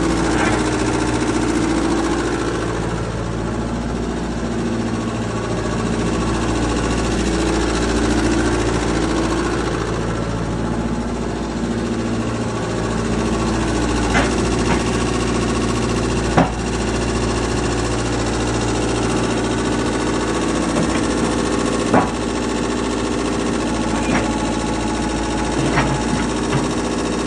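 Komatsu PC78US excavator's diesel engine running steadily, with a few sharp knocks in the second half.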